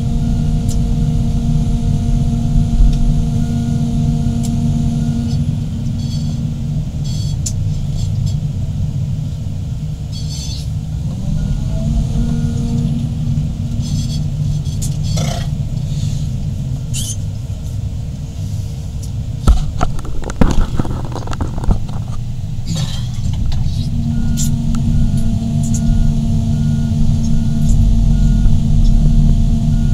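Heavy hydraulic excavators' diesel engines running, the engine note dropping and rising as they work under load. Scattered metallic clanks and knocks are heard, with a loud cluster about two-thirds of the way through, and a faint steady beeping near the start and end.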